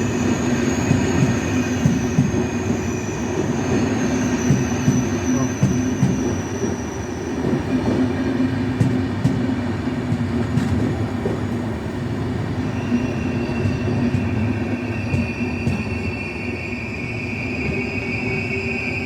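Intercity passenger train running along the station track: a steady rumble of wheels on rail with high, thin steady tones over it. One high tone fades away about a third of the way in, and a new one comes in about two-thirds of the way through.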